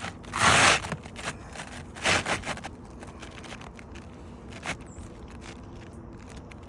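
Scraping on asphalt roof shingles: two loud scrapes, about half a second and two seconds in, with lighter scuffs and taps between them.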